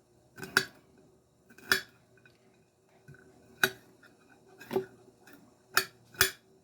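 Knife chopping garlic on a plate: six sharp clacks of the blade striking the plate, spaced roughly a second apart, two close together near the end.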